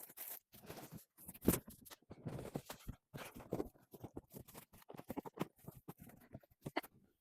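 Bags and packaging being handled and lifted out of a box: scattered rustles and light taps, with one louder knock about one and a half seconds in.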